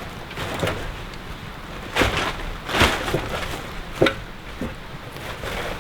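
Wooden roof poles knocking against each other as they are shoved up onto a log frame: a handful of separate wooden knocks, the loudest about two and three seconds in.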